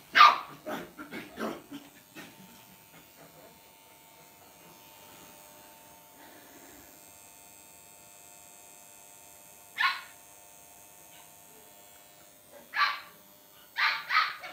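Small Lhasa Apso puppies barking in short, sharp yaps: a quick cluster of barks at the start, then a single bark about ten seconds in, another about thirteen seconds in, and a quick pair near the end.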